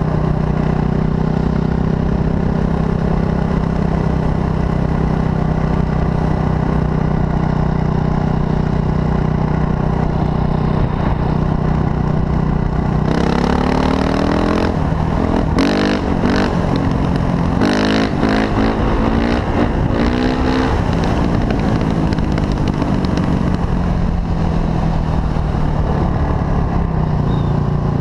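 Honda CRF450's single-cylinder four-stroke engine running as the bike rides along a road, holding a steady pitch, then rising and falling in revs for several seconds in the middle before settling back to a steady cruise.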